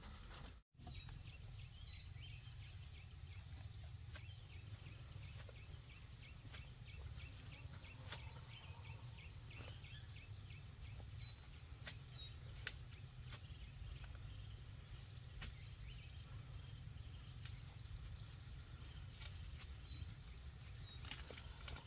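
Quiet outdoor rural ambience: a steady low rumble with faint chirping calls and a few sharp clicks, broken by a brief moment of silence about a second in.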